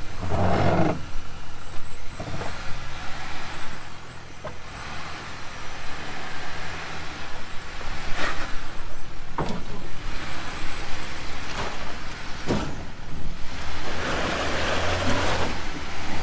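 Jeep Gladiator's engine running low and steady as it crawls over boulders, with several sharp knocks as the tires and underbody strike rock. A louder scraping rush comes near the end. Afterwards the rock strike is put down to the tire or a skid plate taking the hit.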